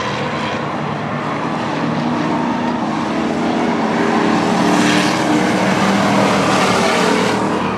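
Several short-track stock cars racing in a pack, their engines running hard at speed, a little louder past the middle as the cars come by.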